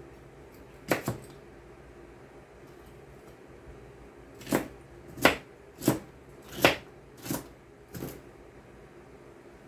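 A kitchen knife chopping through vegetables on a cutting board: a quick pair of cuts, then six steady chops about two-thirds of a second apart.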